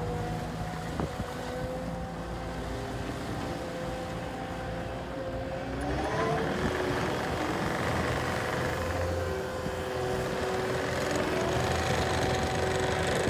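Cat 289D compact track loader's four-cylinder turbodiesel engine running as the machine drives and turns. The engine revs up about six seconds in and stays louder and rougher after that.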